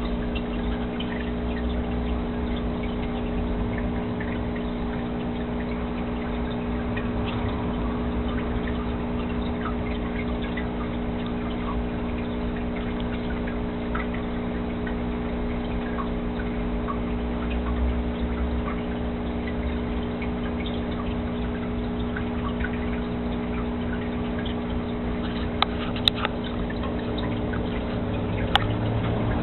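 Aquarium water trickling over the steady hum of the tank's pump. A couple of sharp clicks near the end.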